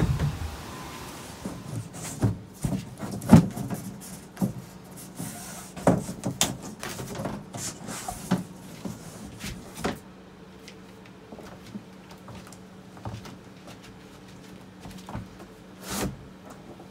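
Thin plywood subfloor sheets knocking, bumping and scraping as they are handled and set into place on a floor, a run of sharp wooden knocks that thins out in the second half, with one louder knock near the end.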